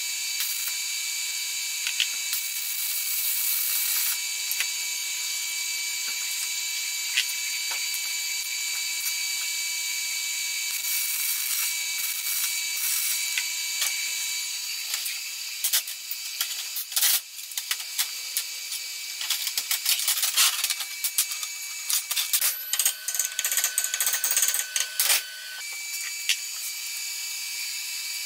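Stick-welding arc crackling and hissing steadily as a steel plate is welded onto a steel pipe, for roughly the first half; then a run of sharp metallic clicks and knocks.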